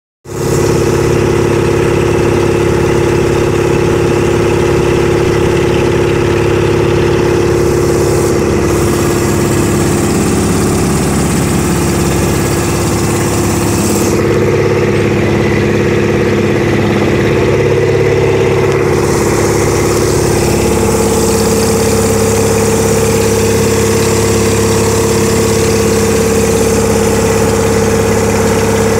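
Engine of a wooden harbour boat running steadily while the boat is under way, a loud, even drone whose pitch shifts slightly a couple of times.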